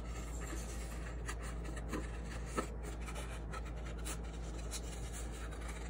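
Scissors cutting crayon-coloured paper: a string of short, irregular snips with light paper rustling.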